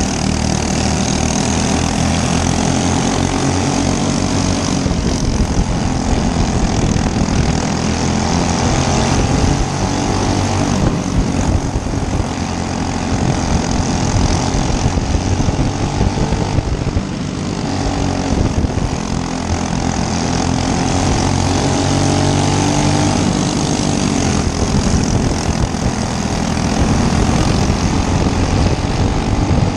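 Racing go-kart engine running hard, its pitch rising and falling as the kart speeds up and slows through the turns.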